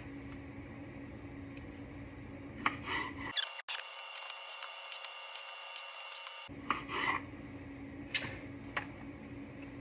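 Food being cut on a cutting board: a few separate rasping cutting strokes over a steady low room hum.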